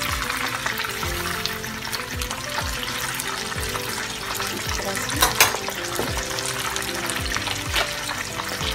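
Cornflake-coated chicken strips deep-frying in hot oil, a steady crackling sizzle, while a slotted spoon stirs and turns them in the pan. Two sharp clicks about five seconds in.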